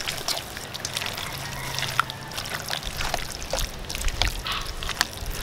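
Hands tossing and mixing marinated chicken pieces in flour and cornstarch in a bowl: irregular wet squelches and short clicks.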